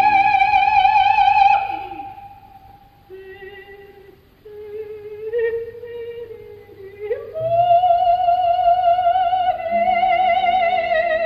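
Operatic soprano singing on a recording: a long high note held with wide vibrato breaks off about a second and a half in, softer, lower phrases follow, and another long held note starts about seven and a half seconds in.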